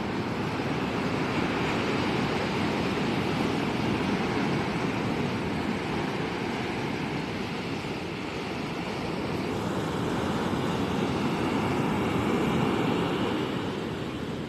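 Ocean surf: a steady rushing wash that swells and eases slowly, loudest a little before the end, then fading.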